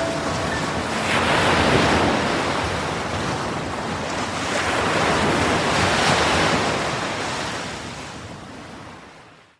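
Ocean surf washing onto a sandy shore, swelling twice and then fading out over the last couple of seconds.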